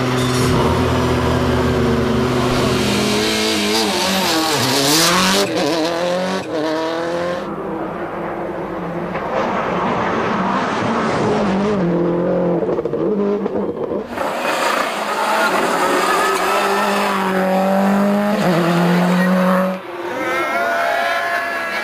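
Subaru Impreza WRC rally cars' turbocharged flat-four engines at full throttle on tarmac, the pitch climbing and dropping with each gear change and lift. The sound jumps abruptly several times as one pass cuts to the next.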